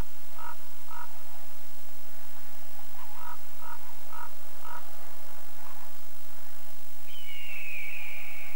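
Frog croaking: short two-toned croaks in two runs of four, about two a second, then a higher, falling call near the end, over a steady low hum.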